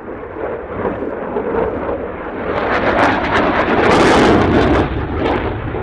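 Jet noise from a Dassault Rafale's twin Snecma M88 turbofans during a display manoeuvre. It swells to its loudest about four seconds in, with a harsh crackle, then eases off.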